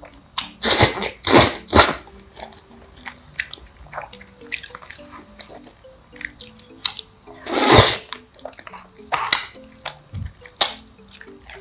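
Black bean noodles (jjajangmyeon) slurped in quick bursts, three close together about a second in and a longer slurp near eight seconds, with chewing and small clicks of chopsticks and bowl between.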